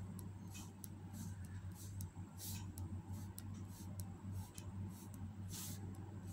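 Ballpoint pen tip tapping dots onto paper: light, irregular ticks about two a second, a few of them slightly longer. A steady low hum runs underneath.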